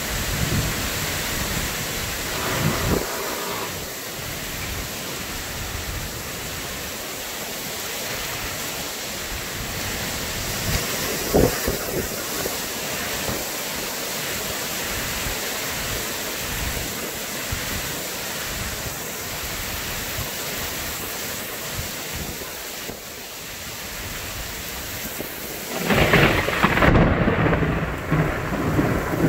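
Heavy thunderstorm rain falling steadily, with a loud burst of thunder near the end.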